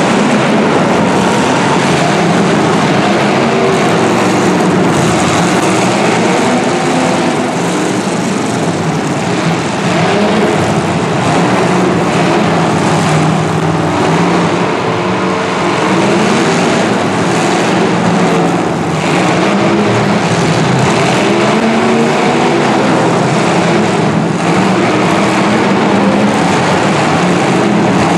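Several 1980s full-size demolition derby cars running hard at once, their engines revving up and down and overlapping, with a few sharp bangs from cars hitting each other.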